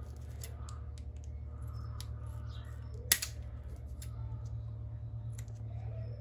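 Scissors snipping and trimming a small plastic part: a series of faint clicks with one sharp snap about three seconds in, over a steady low hum.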